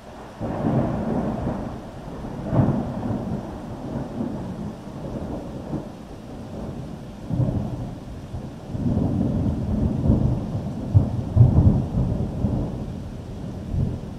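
Thunder rolling and rumbling through a thunderstorm. It breaks suddenly about half a second in, with a sharp clap a couple of seconds later, then swells into a second, longer rumble with several cracks before it dies away near the end.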